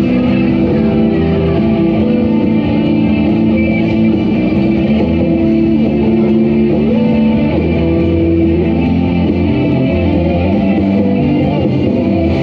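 Loud recorded music led by guitar, playing steadily without singing.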